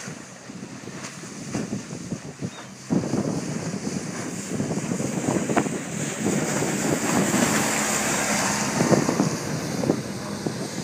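Wind buffeting the microphone over the steady drone of a Honda 15 hp four-stroke outboard pushing a small aluminium boat at speed past close by. It grows louder and is loudest about seven to nine seconds in, along with the rushing hiss of its wake, then fades slightly as it moves away.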